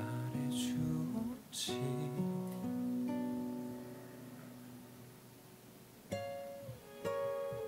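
Background music: slow acoustic guitar notes ringing and changing every second or so, dying away in the middle and picking up again about six seconds in.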